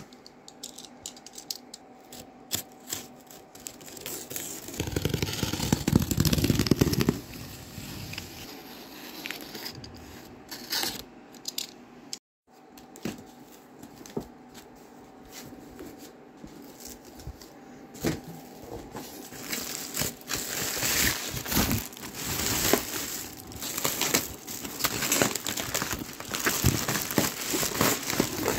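A cardboard shipping box being opened and unpacked: scattered scrapes and tearing, with a louder two-second scraping stretch about five seconds in, then plastic bubble wrap rustling and crinkling densely as hands dig through it over the last third.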